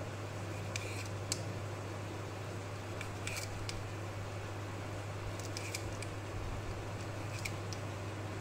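Short, sharp ticks of a knife tip on the board through parchment paper, in small clusters, as dough is cut into strips along a ruler. A steady low hum runs underneath.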